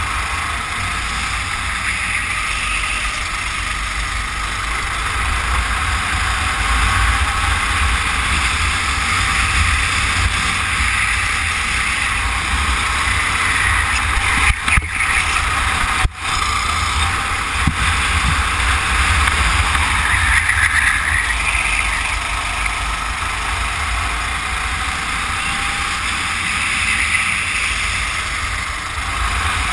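Racing kart engine running at speed, its note rising and falling every few seconds through the laps, with heavy wind buffeting on the microphone. The sound cuts out briefly twice midway.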